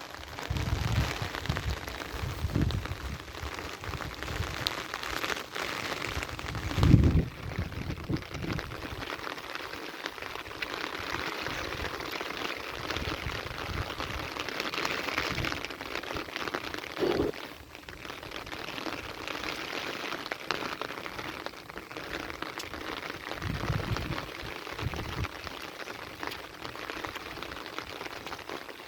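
Heavy rain falling steadily, with short low thumps now and then; the loudest comes about seven seconds in.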